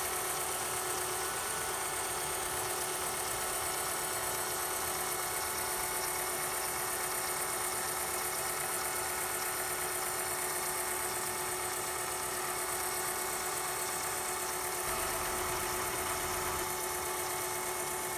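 Reverse-osmosis watermaker's pump running steadily on a test run, a constant motor tone with hiss, just after a faulty non-return valve that let reject water mix back into the fresh water was replaced.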